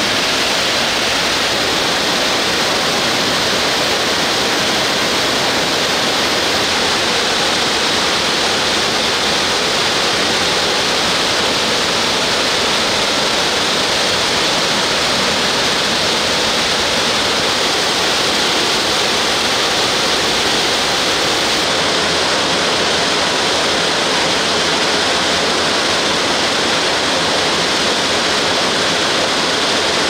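The Gastein waterfall in flood: a huge mass of high water rushing down the rock, a loud, steady, unbroken rush of falling water.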